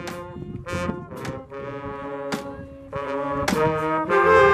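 Brass band with trombones and trumpets playing a tune outdoors in held notes with sharp beats between them, growing louder about three seconds in.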